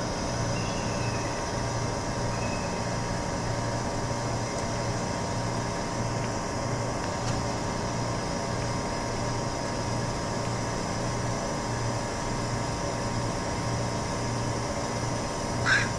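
Steady low machine hum that pulses in an even rhythm, about twice a second. Near the end a crow caws twice.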